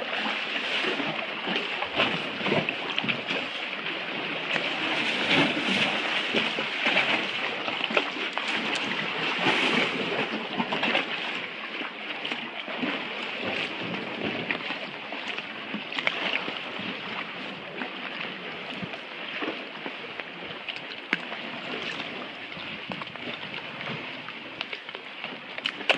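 Kayak paddling: paddle blades splashing and water sloshing around the hull in a steady wash of water noise, with small sharp splashes and knocks throughout.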